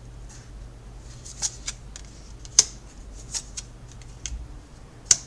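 Tarot cards being handled and laid down on a table: a scattering of light clicks and snaps, the sharpest about two and a half seconds in and again near the end, over a steady low hum.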